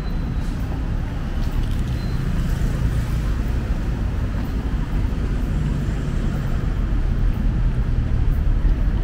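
City road traffic: a steady low rumble of engines and tyres from vehicles moving along the street.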